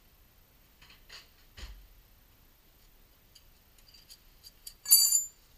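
Light clicks and knocks of someone moving about and handling tools at a car's wheel hub, then a short, loud clatter near the end.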